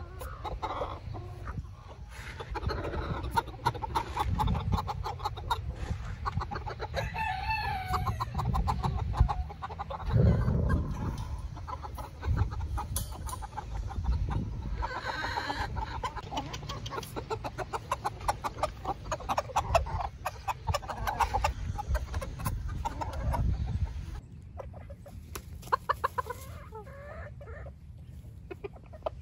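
A flock of silkie chickens clucking busily while they feed, with a rooster crowing partway through. The clucking grows quieter near the end.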